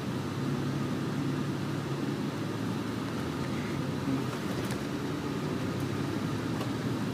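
Inside an MCI D4500CL coach under way: a steady engine drone and road noise, with a few faint ticks or rattles in the second half.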